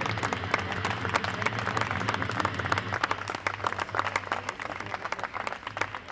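Audience applauding, many hands clapping at once and thinning out in the last few seconds, over a steady low hum.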